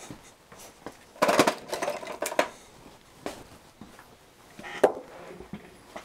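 Small hard objects clattering and clicking as they are handled on a workbench: a short rattling burst about a second in, another just after two seconds, then a few single sharp clicks, the sharpest near the end.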